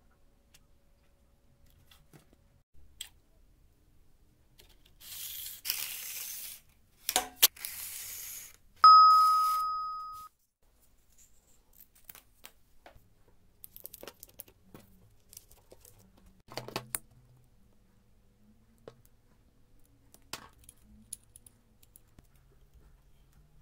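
Hand crafting noises with scissors and plastic: two short rasping cuts or scrapes split by a sharp click, then a single bright metallic ding that rings and fades over about a second and a half. Scattered small clicks and taps of handling follow.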